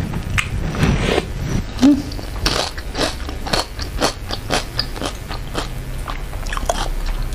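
A person chewing springy beef meatballs (pentol) in spicy broth close to the microphone, with quick wet mouth clicks and squelches a few times a second. There is a brief low hum about two seconds in.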